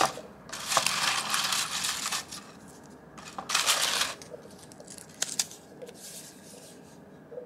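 Paper slips rustling and clattering as a hand rummages through a plastic drawer full of them, then a second burst of rustling as a slip is drawn out and the plastic drawer is pushed shut. A few sharp clicks and soft crinkles follow as the folded slip is opened.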